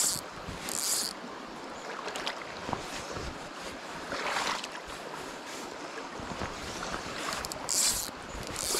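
Shallow river water running steadily over stones around a wading angler. Over it come a few brief high swishes, two near the start and two near the end, as the fly line is worked and cast.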